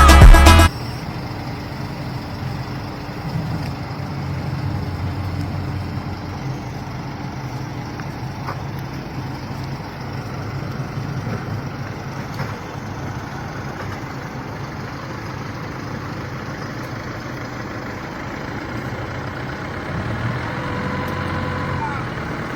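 A song stops abruptly under a second in, then the engine of a heavy machine runs steadily at idle, with faint higher-pitched sounds near the end.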